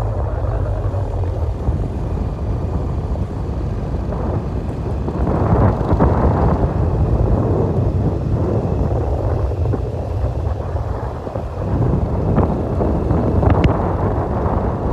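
Wind buffeting the microphone on a moving motorbike riding a dirt road, with rumbling ride and engine noise underneath. The buffeting swells about five seconds in and again near the end.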